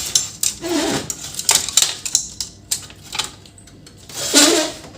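Irregular clicking and clattering of plastic and metal parts as a laser printer's casing is unclipped and opened to reach its power supply, with a longer scraping sound near the end.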